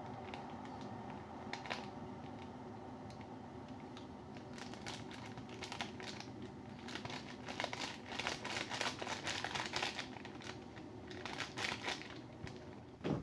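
A paper pouch crinkling and rustling in irregular bursts as powder is shaken out of it into a container, the crinkling heaviest in the second half, over a steady low hum.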